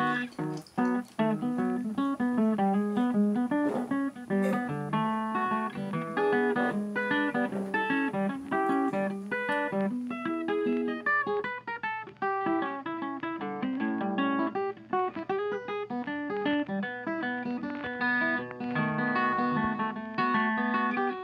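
Background music played on plucked guitar: a busy run of picked notes that carries on steadily.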